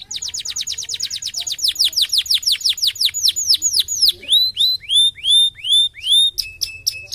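Canary singing: a rapid trill of high down-slurred whistles for about four seconds, then a few slower rising-and-falling whistles, and near the end a quick clicking figure over a held note.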